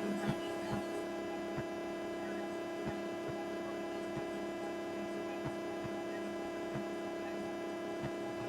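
Steady electrical mains hum with several steady tones, and faint evenly spaced ticks about every second and a bit.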